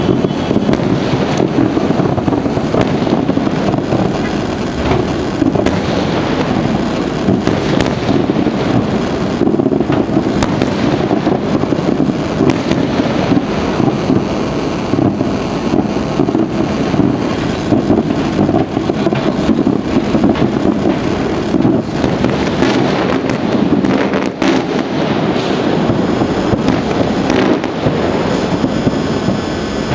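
Aerial fireworks display: shells bursting one after another in an unbroken run of bangs and crackle, with no pause.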